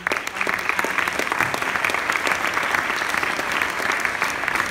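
Audience applauding, many hands clapping at once, starting suddenly and keeping up steadily.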